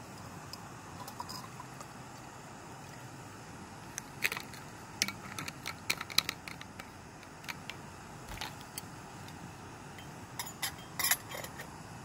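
Small canister camping stove burning with a steady hiss under a stainless steel pot, with scattered sharp metallic clicks and clinks, a run of them from about four seconds in and a cluster near the end.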